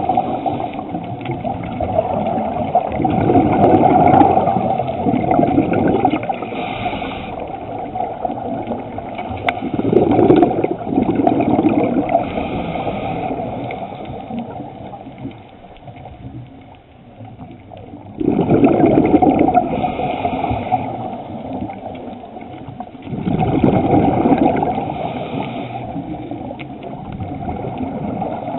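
Underwater bubbling and water noise on a scuba dive, swelling in surges several seconds apart, with a quieter stretch about halfway through.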